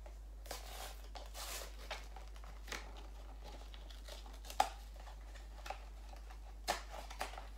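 Small cardboard Funko Mystery Minis box being opened by hand and its contents pulled out: rustling and crinkling, with a few sharp snaps, the loudest about halfway through.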